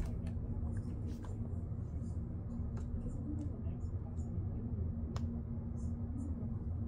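Scattered small clicks from a plastic dinosaur action figure's ratchet joints as it is handled and posed, with sharper single clicks at the start and about five seconds in, over a steady low hum.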